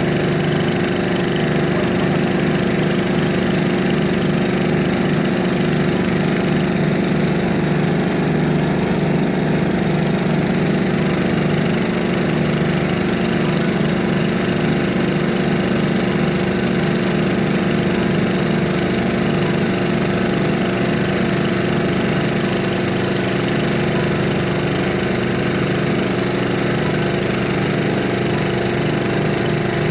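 Engine running steadily at a constant speed with a fast, even throb, under a steady hiss while a fire hose jet plays on the burnt tugboat.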